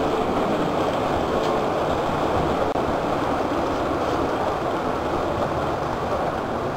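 Model diesel locomotive running along the layout track, a steady, even running noise with no breaks.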